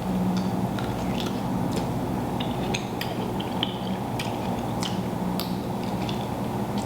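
Scattered small clicks and taps of seafood and utensils being handled during a seafood-boil meal, over a steady low hum.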